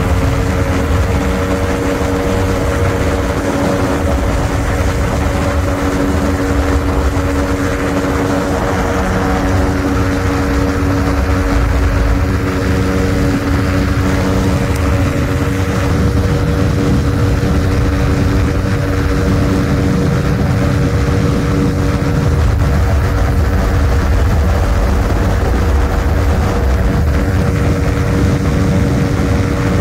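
Ultralight aircraft engine and propeller running steadily at one pitch, over a heavy low rumble.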